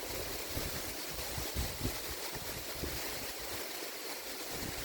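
Waterfall: a steady, even rush of falling water, with a few brief low bumps underneath.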